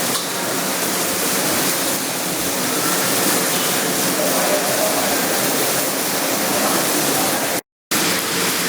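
Arc welding on a 6-inch carbon steel pipe: a steady hiss from the welding arc, broken by a split-second drop to silence near the end.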